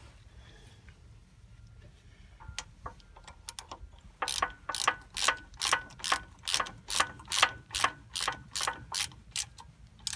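Ratchet wrench clicking in quick, even strokes, about two to three a second, as a bolt is run in on a backhoe cylinder mount. It starts faintly and gets louder about four seconds in.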